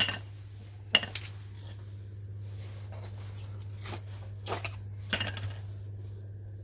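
Metal parts clinking and knocking as a broken safe is taken apart by hand: a few sharp clinks, with a pair about a second apart at the start and a cluster about four and a half to five seconds in, over a steady low hum.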